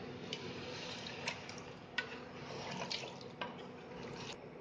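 Wooden spoon stirring mutton in masala and freshly added water in a pressure cooker: liquid sloshing, with a few light clicks of the spoon against the pot.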